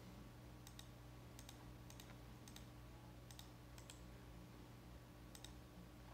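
Computer mouse left-button clicks: about seven faint, separate clicks spread out over several seconds, each a quick press-and-release double click. Underneath is a low, steady electrical hum.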